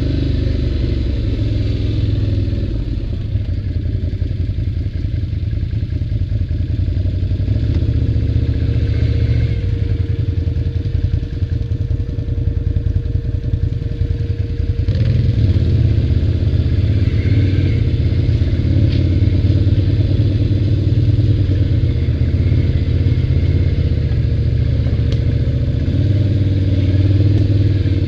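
ATV engine running steadily as the machine rides along, getting louder about halfway through as the throttle picks up.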